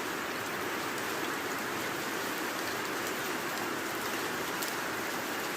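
Heavy rain falling steadily, a dense even hiss with a few sharper drop ticks now and then.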